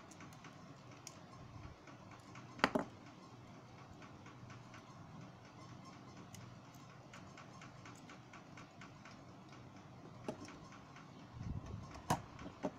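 Small clicks and taps of a smartphone's plastic frame, circuit board and metal shield being handled and pried apart, with one sharper click a few seconds in and a short clatter of knocks near the end as the metal frame comes free.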